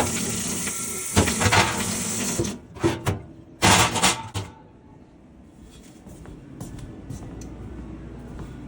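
Tap water running in a sink over the espresso machine's drip tray as it is rinsed. The water shuts off about two and a half seconds in, followed by a few clattering knocks as the metal tray is handled, then only faint clicks.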